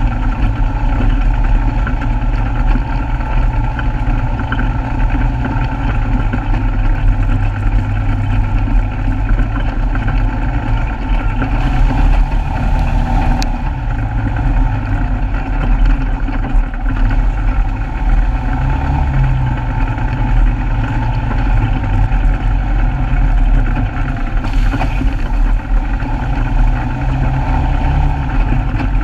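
Polaris RZR side-by-side's engine running at steady, moderate revs with small rises and falls as it drives a rough dirt trail. A short hiss comes twice, about twelve and twenty-five seconds in.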